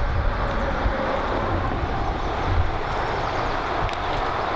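Steady rush of flowing river water, with wind buffeting the microphone in low, uneven rumbles.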